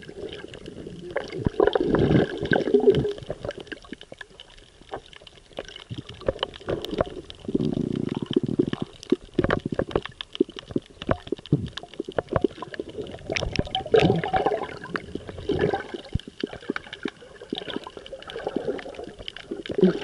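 Underwater sound picked up by an action camera held below the surface: a dense crackle of sharp clicks, with water gurgling and sloshing that swells louder a few times.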